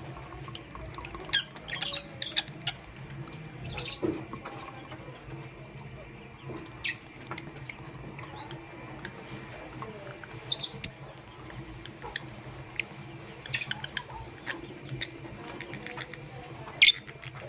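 Lovebirds giving short, high-pitched chirps and squeaks in scattered clusters, the sharpest about eleven seconds in and near the end.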